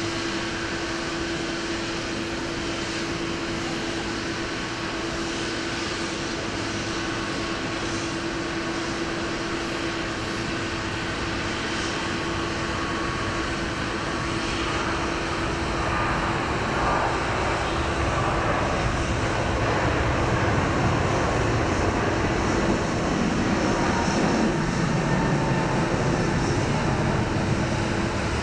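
Airliner engines running: a steady noise with a constant hum that grows louder over the second half.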